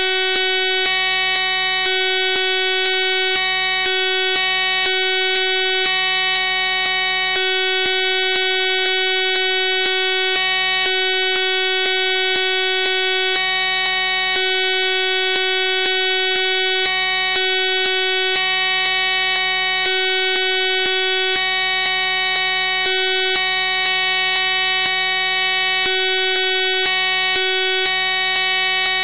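Loud, steady electronic buzz made of many fixed tones, with a lower hum that cuts in and out irregularly every second or so.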